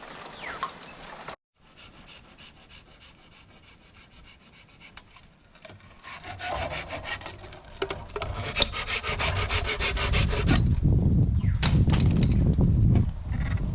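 Wood being sawn by hand in quick, even back-and-forth strokes. The strokes start faint and grow much louder from about six seconds in.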